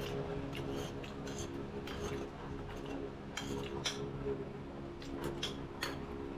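Spoon and fork clinking and scraping on ceramic dinner plates: many short, scattered clinks over a steady low hum.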